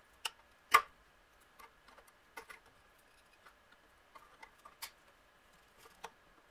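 Scattered small clicks and taps of parts being handled and worked loose on a pressure washer's pump and unloader valve, the loudest about three-quarters of a second in.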